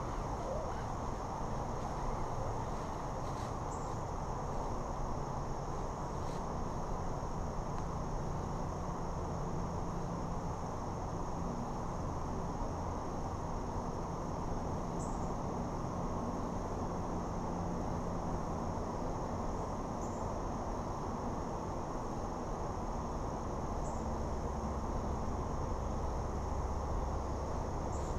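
Steady high-pitched insect chorus trilling without a break, over a steady low rushing noise, with a few faint short chirps now and then.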